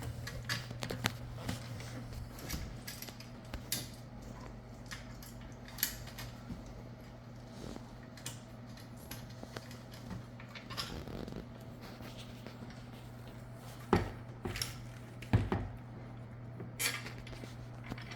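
Light metallic clinks and clicks of bolts, washers and tools being handled while a lawn mower is put together, with two louder knocks about three quarters of the way through, over a steady low hum.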